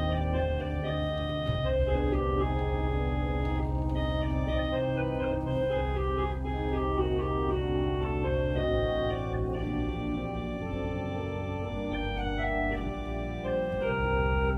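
Organ playing a slow piece: sustained chords over long held bass notes, the harmony changing every few seconds.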